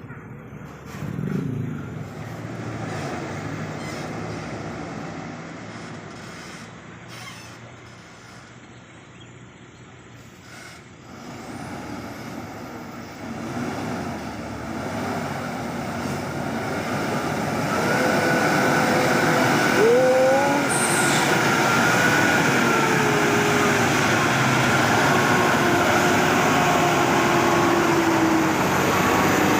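Heavy diesel truck engine labouring uphill, growing louder as the truck approaches and staying loud through the second half, with wavering whining tones over the engine noise near the end.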